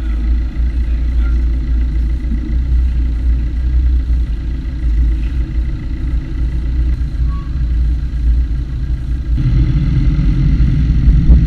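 Steady low rumble of wind and road noise on the microphone of a camera moving along a road, growing heavier about nine seconds in.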